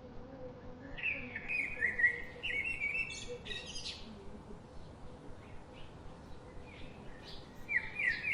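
Small bird singing: a quick run of short, falling chirps for about three seconds starting a second in, and another burst of chirps near the end.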